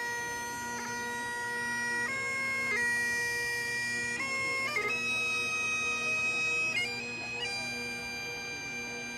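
Bagpipes playing a slow tune of long held notes over a steady drone.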